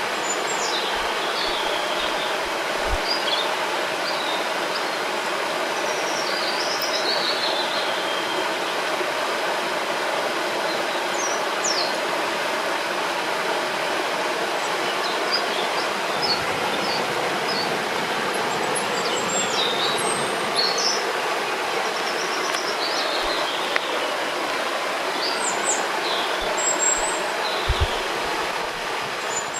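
Steady rushing of a flowing river, with songbirds chirping and trilling at intervals throughout.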